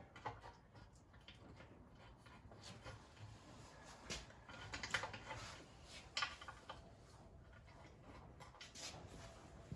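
Faint rubbing and a few light clicks and taps of hands working on engine parts, with a sharper tick about 4, 5 and 6 seconds in.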